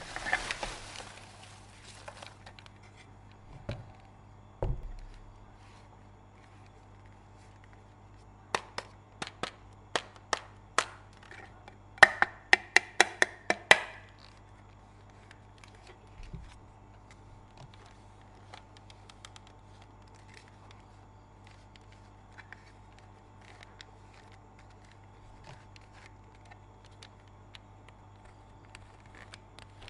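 Sharp clicks in a series: about six spaced clicks, then a quick run of louder clicks with a brief ringing rattle, over a faint steady hum.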